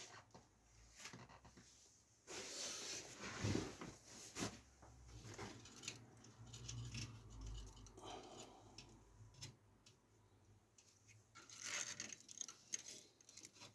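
Quiet handling noises: scattered light clicks and rustling scrapes of cables and small parts being worked by hand, with a louder rustling stretch about two seconds in and another near the end.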